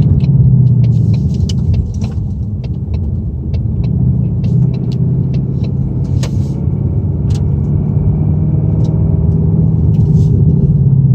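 2018 Ford Mustang GT's 5.0 Coyote V8 running with a steady low hum, with scattered sharp ticks and clicks over it. The owner suspects the engine rattle is piston slap.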